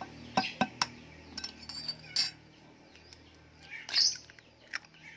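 A chicken egg being cracked on a ceramic bowl: a few sharp taps in the first second, then shell crackling as it is pulled apart, loudest near the end. Birds chirp in the background.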